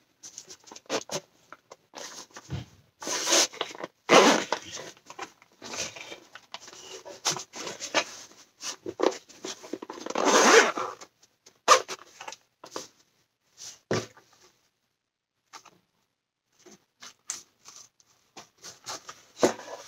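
Zipper of a fabric-covered drone carrying case being pulled open in several rasping stretches, with clicks and rubbing from the case being handled.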